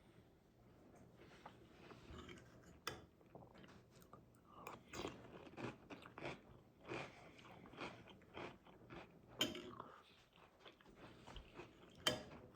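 A person chewing crunchy cereal, with a run of crunches about twice a second through the middle and a few sharp clicks, the loudest two near the end.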